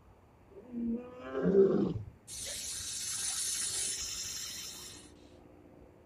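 Male lion roaring: two deep, moaning roars close together, about a second in. A harsh, high hissing sound then cuts in suddenly and runs for about three seconds before fading.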